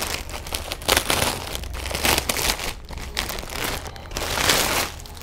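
Thin clear plastic bag crinkling in a series of rustles as hands work the packaged item out of it; the loudest rustle comes about four and a half seconds in.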